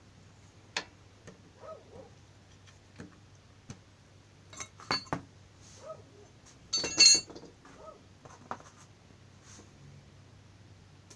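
Scattered metallic clicks and clinks of hand tools working on motorcycle parts, with a louder ringing clatter of metal about seven seconds in.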